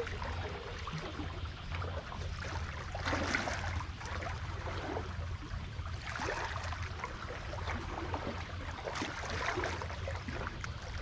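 Sea water sloshing and lapping against concrete breakwater blocks in uneven surges every few seconds, over a steady low hum.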